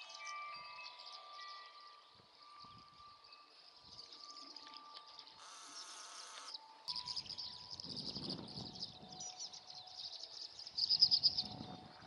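Wind-chime tones ring at several pitches over high, rapid bird twittering. About halfway through a short hiss cuts in and the chime tones fade. The twittering then grows louder, peaking near the end, with low rumble of wind on the microphone.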